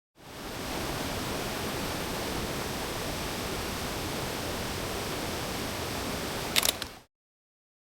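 Steady, even rush of a waterfall, with a few sharp clicks near the end just before it cuts off.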